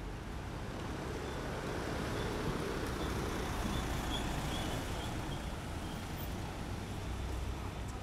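Street traffic: a passing road vehicle's engine and tyre noise swells for a few seconds and then eases off.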